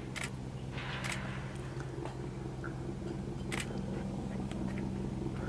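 A steady low mechanical hum with a few short, sharp crackling clicks, the first three within the first four seconds.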